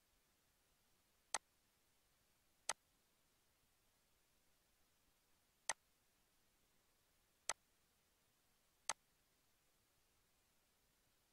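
Five sharp computer mouse clicks at irregular intervals, over near-silent room tone.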